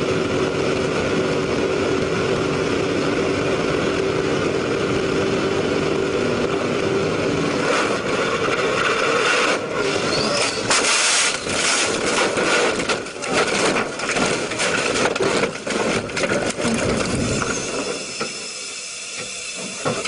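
Race car engine running flat out at about 182 mph and 5,700 rpm with wind noise, until about eight seconds in the right rear tyre blows. This is followed by a long run of loud bangs, thumps and scraping as the car crashes off the road into the dirt, dying down near the end.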